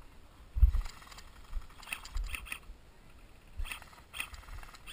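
Footsteps crunching on a gravel dirt track, about two steps a second, with low dull thumps from the body-worn camera jolting; the loudest thump comes about half a second in.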